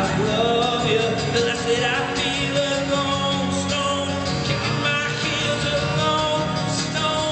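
A man singing live with a strummed jumbo acoustic guitar, the voice sliding through held notes over a steady guitar rhythm.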